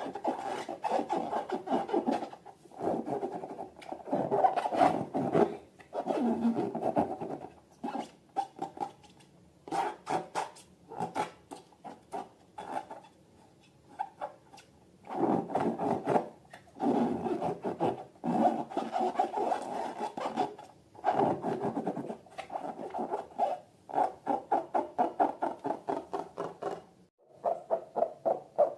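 Rubbing and scratching from hands working balloons and slime, in repeated bursts of one to two seconds with short pauses between them.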